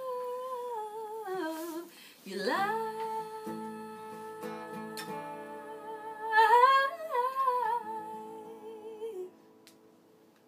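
A woman singing long, wordless held notes over a strummed acoustic guitar as the song closes. Her voice climbs near the middle, then the music stops about nine seconds in, leaving near silence.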